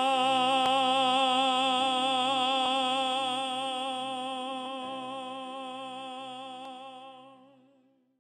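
A singing voice holding the final note of a slow song with steady vibrato, slowly fading away to nothing near the end.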